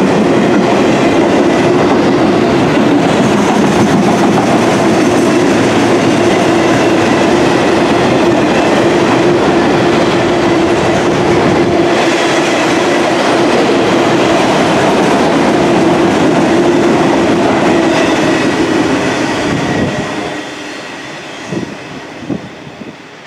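Freight train of autorack cars rolling past close by: steady loud rumble of steel wheels on rail with a steady hum. About twenty seconds in, the last car passes and the sound falls away, leaving a few brief knocks from the receding wheels.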